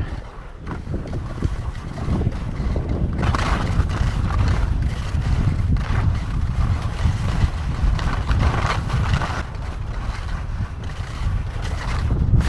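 Wind buffeting the microphone in a steady low rumble while skiing downhill. From about three seconds in it is joined by the uneven hiss of skis sliding over wind-packed, crusty snow.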